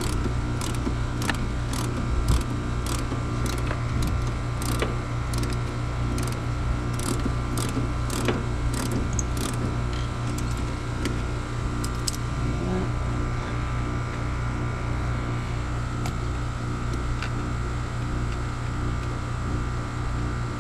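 A steady, pulsing machine hum, with a run of evenly spaced clicks, about two a second, that stops about twelve seconds in.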